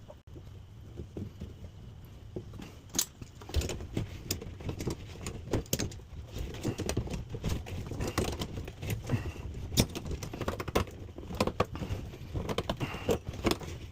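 Irregular metallic clinks and knocks, like small metal parts being handled, over a steady low hum.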